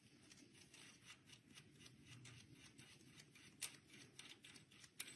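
Faint clicks and light metal taps of a washer and nut being fitted by hand onto the back of a stub axle through the steering arm. There are two sharper clicks, one about three and a half seconds in and one near the end.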